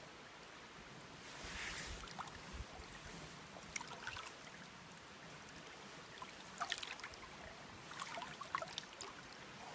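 Shallow river water trickling and lapping, with scattered small splashes, a swell of splashing just before two seconds in and more small splashes in the second half.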